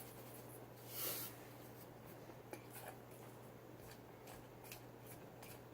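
Faint rubbing and light scraping of a utensil working a thick shampoo-and-salt slime mixture in a bowl, with a short rustling burst about a second in and scattered small clicks after it.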